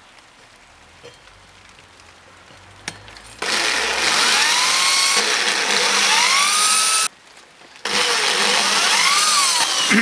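Black & Decker electric drill boring through the soft cast alloy of a washing-machine drum pulley, starting about three and a half seconds in. It runs in two bursts with a brief stop just after the seven-second mark, its pitch rising and falling as the bit bites.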